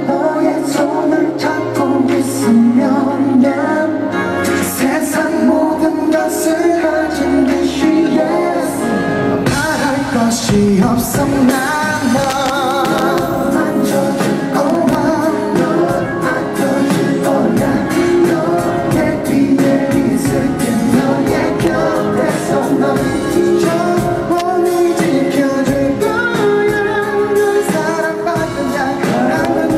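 Live pop music from a concert: a singer's vocals over instrumental accompaniment, recorded from the audience.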